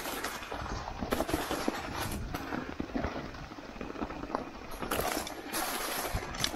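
Santa Cruz mountain bike clattering down a rocky trail: tyres knocking over rocks and crunching through dry leaves, with quick irregular rattles from the bike. A louder hissing rush comes about five seconds in.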